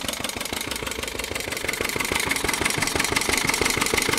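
Small lawn mower engine running steadily on gasoline vapor drawn through a sock-stuffed jar, with a rapid, even firing. The vapor is hot and dry and extra air leaks in, a lean mixture that the owner expects to eventually stall it.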